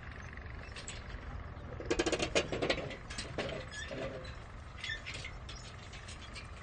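Metal construction-site background: metal tools and parts clinking and rattling, with a quick flurry of clicks about two seconds in, then a couple of short squeaks and scattered ticks over a steady low rumble.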